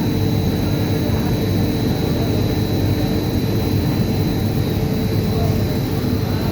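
Front-loading washing machine running with a steady, loud grinding noise and a thin high whine over it.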